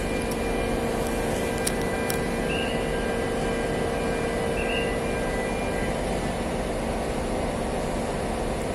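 Large crawler crane's diesel engine running at a steady pitch, a constant drone with a held hum; some of its higher tones fade out about halfway through. Two brief high chirps sound over it, about two and a half and five seconds in.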